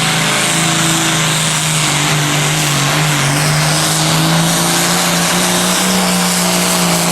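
Super farm class pulling tractor's diesel engine held at high, steady revs under full load as it drags the weight sled down the track, its note dipping slightly now and then, with a loud hiss over it.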